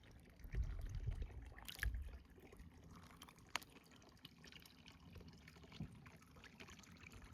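Faint trickle of hot spring water pouring into a soaking tub, with a few low rumbles in the first two seconds and scattered faint clicks.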